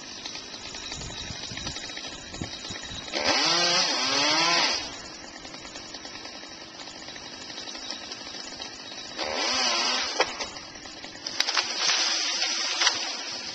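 Chainsaw revved up in three bursts, about a second and a half, then a second, then a second and a half, cutting into the top of a dead tree, and running at a lower idle in between.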